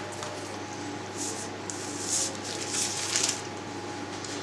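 Soft rustling and swishing of a sheet of puff pastry being lifted and stretched off baking paper, a few brief swishes in the middle, over a low steady hum.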